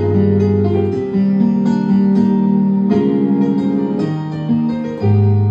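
Worship-style keyboard playing of Sunday Sounds software patches from an Arturia KeyLab controller: sustained chords over held bass notes, the harmony changing about every one to two seconds.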